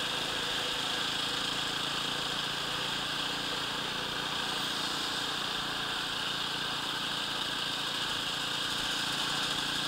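Enduro motorcycle engine running steadily at a constant cruising speed, with wind rushing past a helmet-mounted camera.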